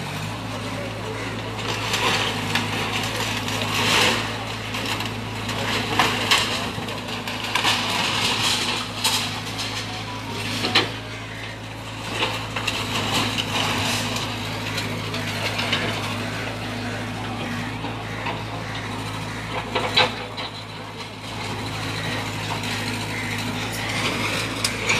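Excavator engine running steadily while it tears down a brick building, with repeated crashes and clatter of falling brick and rubble.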